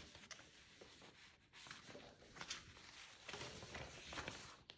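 Near silence with faint rustling and handling of paper, a little louder in the last second or so.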